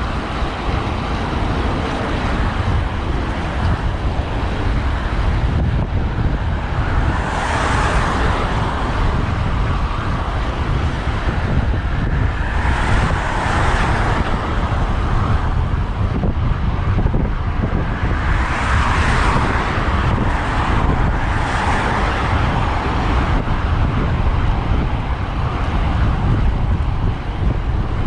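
Road traffic heard from a moving bicycle: cars passing several times, each swelling and fading, over a steady rumble of wind on the microphone.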